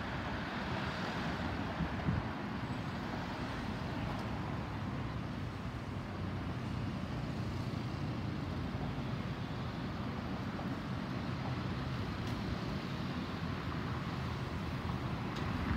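Jet noise from a Boeing 737-900ER's two CFM56-7B turbofans as the airliner passes overhead at altitude: a steady, even roar with no change in level.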